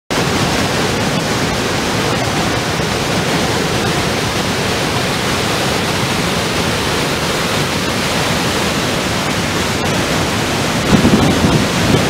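Steady rushing of the Pailón del Diablo waterfall on the Río Pastaza, a loud, even wall of water noise. It swells briefly near the end.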